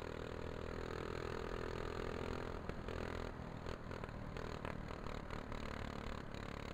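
Go-kart engine running at speed, heard from on board: a steady engine note at first, then broken up by a run of short knocks from about halfway through.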